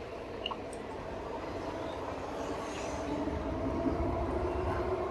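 Electric bike riding slowly between lanes of cars: a steady whine from the e-bike's rear hub motor over the hum of car engines in slow traffic, with a deeper engine rumble growing about three seconds in.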